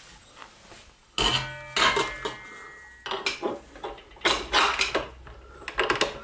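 Metal clanks and clicks as a dough hook is handled and fitted onto a stand mixer over a stainless steel mixing bowl. The loudest clank comes about a second in and rings briefly, and several more clatters and clicks follow.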